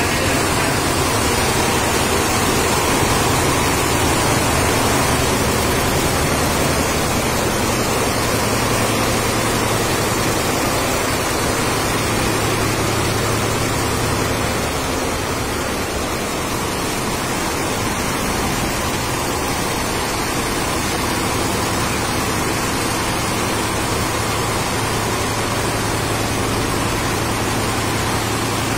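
Multi-head Richpeace embroidery machines running, a dense steady mechanical noise with a low hum underneath.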